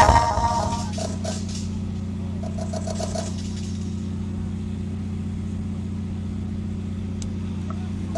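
Loud music cuts off at the start, leaving a steady low hum with a faint murmur of voices behind it.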